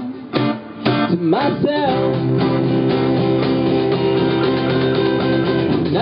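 A live acoustic pop-rock band playing: strummed acoustic guitar with electric guitar and cajón, a sung line in the first two seconds, then notes held steady.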